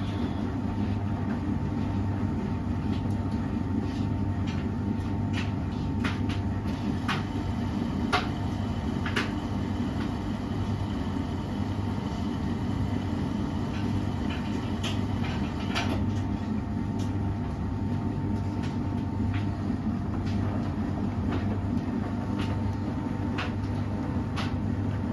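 Beko washing machine running: a steady low motor and drum hum, with scattered light clicks and knocks.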